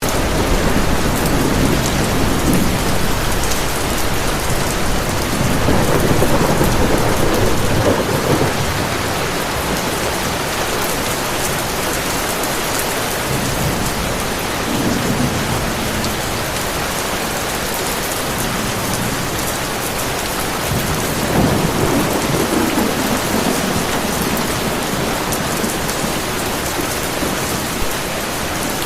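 Heavy rain falling steadily, with low rolling thunder rumbling through it: a long roll in the first eight seconds, then shorter ones about halfway and again a little later.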